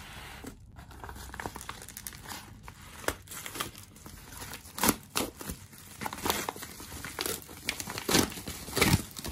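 A bubble-lined Amazon paper mailer being torn open by hand: crinkling, crumpling paper with sharp rips, loudest about five seconds in and twice near the end.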